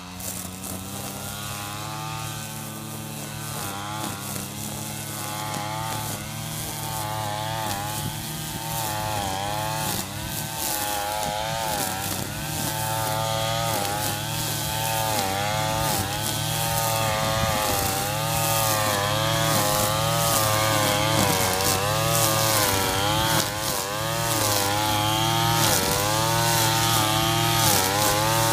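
Redmax two-stroke gas string trimmer running, its engine pitch rising and falling over and over as the throttle is worked while cutting grass, growing louder as it comes closer.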